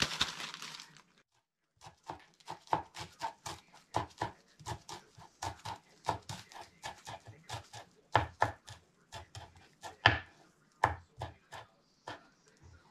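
A plastic bag crinkling briefly, then, after a short break, a kitchen knife chopping fresh leafy herbs on a cutting board: uneven, sharp strikes at about three a second.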